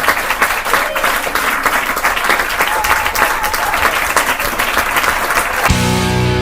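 Audience applauding a band announced as the contest winner. Near the end the applause cuts off suddenly and music begins.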